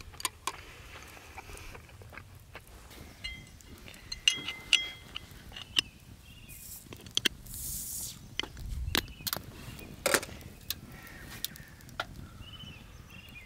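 A glass beer bottle's crown cap is worked open with a knife blade. There are metallic clicks and scrapes on the cap, then a hiss of escaping gas about seven seconds in, followed by a dull thump.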